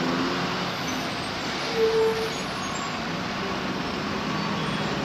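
Road traffic in a jam: lorries and other vehicles running steadily on a wet road, with one short beep about two seconds in.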